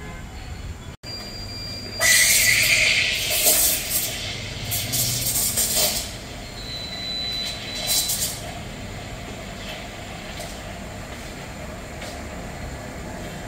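Nuova Simonelli espresso machine's steam wand hissing into a steel pitcher of milk. The hiss starts suddenly about two seconds in and is loud for about four seconds, with a brief thin whistle and another loud spell around eight seconds, then it settles to a quieter steady hiss.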